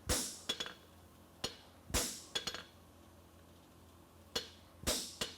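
Blacksmith's hand hammer striking hot steel on an anvil, bumping up (upsetting) the toe of a horseshoe bar to gather material for a toe clip. Irregular ringing blows, several followed by quick light taps.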